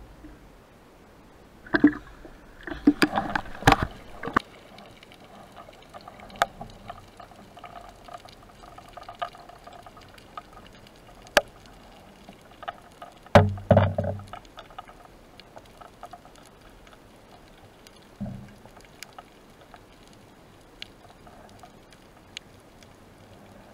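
Water splashing and sloshing around a spearfishing freediver's camera at the sea surface for the first few seconds. Then come muffled underwater sounds: scattered sharp clicks, a loud short gurgling burst about halfway through, and a fainter one a few seconds later.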